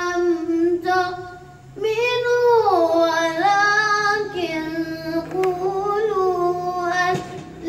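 A young boy reciting the Quran in a melodic, drawn-out tajweed style, holding long notes and bending their pitch up and down. There is a short pause for breath a little under two seconds in.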